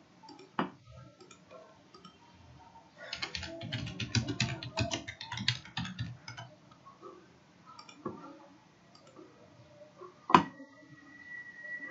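Computer keyboard typing in a quick run of keystrokes lasting about three seconds, with single clicks before and after it. Near the end comes one sharp, louder click, followed by a faint steady high tone.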